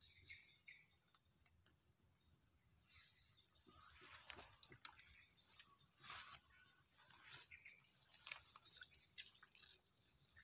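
Faint, steady high-pitched chirring of insects, with soft rustles and clicks from about four seconds in.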